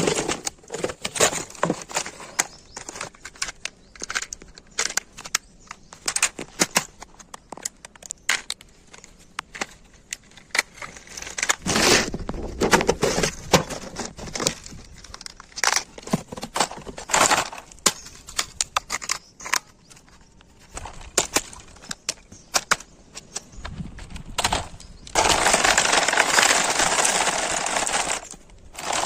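Toy RC vehicles driving, making irregular clicking, crackling and clattering over rough ground. Near the end a louder, steady rushing noise takes over.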